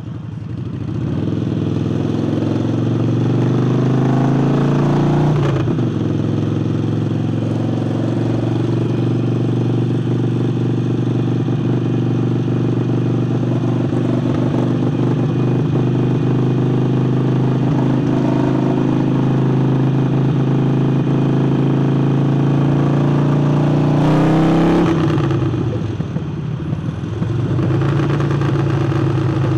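Harley-Davidson Forty-Eight's air-cooled V-twin, breathing through a new aftermarket air intake, under way on the road. Revs climb for the first few seconds, drop at a gear change about five seconds in, then hold steady at cruise. About three-quarters through, the revs rise and fall again and the bike eases off, then pulls again near the end.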